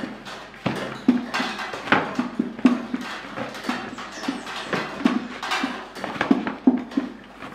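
Hands kneading bread dough in a plastic basin: a steady rhythm of soft thuds and squishes as the dough is pushed and pressed against the basin, about two a second.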